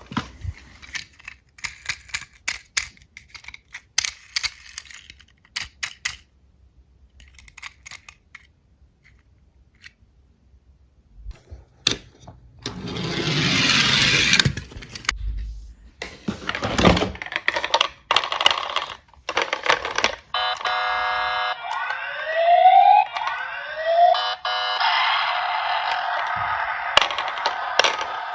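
Light clicks and clacks of diecast toy cars being handled, a brief rushing noise about halfway through, then a toy emergency vehicle's electronic siren from about two-thirds of the way in, with rising sweeps.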